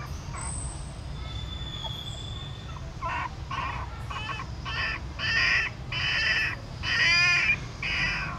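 A crow cawing about eight times in a row, starting about three seconds in, the later caws louder and longer.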